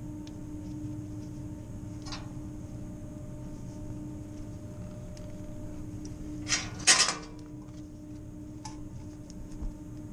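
Brief metallic clicks and clatters from gloved hands handling flexible metal conduit and fittings at an electric valve actuator, with two sharper clatters close together about two-thirds through, over a steady low mechanical hum.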